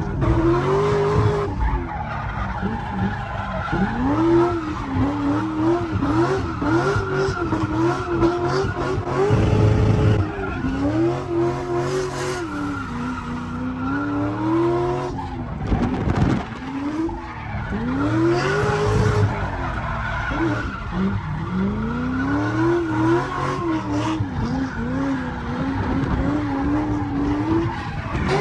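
A drift car's engine revving up and down again and again, its pitch swooping many times, while the tyres squeal through long slides.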